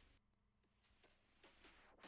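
Near silence: the faint tail of electronic intro music dies away, and a faint rising swell comes up near the end.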